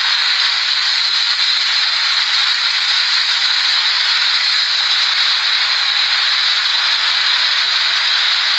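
Tornado winds rushing past as a loud, steady hiss that never lets up, heard through a phone microphone.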